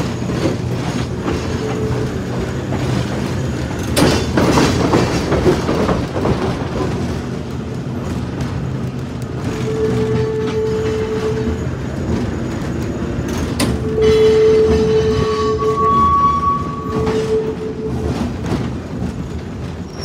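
Restored early-1900s Chicago electric streetcar running along the track, heard from its front platform: a steady rumble of wheels and running gear with the odd sharp click from the rails, and a few brief steady high tones that come and go.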